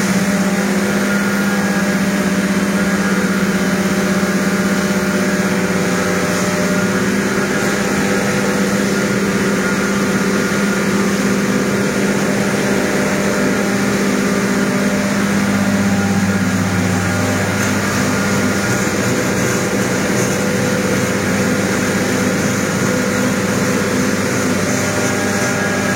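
A motor running steadily throughout, its note dropping to a lower pitch about two-thirds of the way through.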